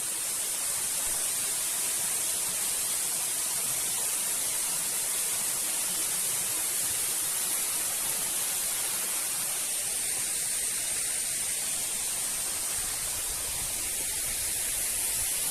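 Steady rushing noise of a waterfall, even throughout with a strong high hiss.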